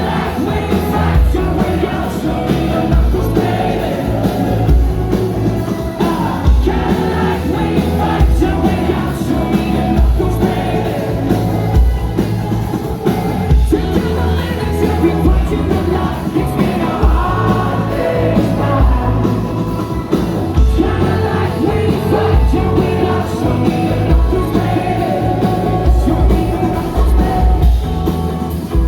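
Indie rock band playing live, full band at a steady loud level, with singing.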